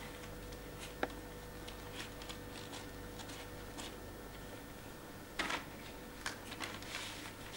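Cloth rubbing and scuffing over an inked etching plate as the surface ink is wiped off: scattered light rustles and taps, the loudest about five and a half seconds in, over a faint steady hum.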